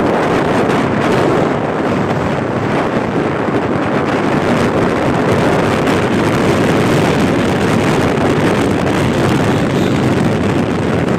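Steady rush of wind on the microphone mixed with road and engine noise from a moving vehicle travelling along the road.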